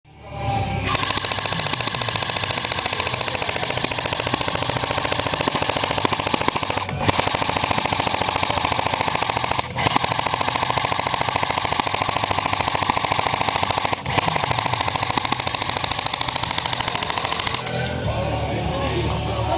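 Airsoft gun firing full-auto in long continuous strings of rapid shots, with brief breaks about seven, ten and fourteen seconds in. The firing gives way to a different, lower sound near the end.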